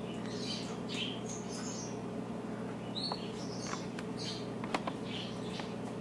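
Soft, scattered bird chirps and a few light clicks as a moustached parakeet eats sprouts from a plastic feeding cup, over a steady low hum.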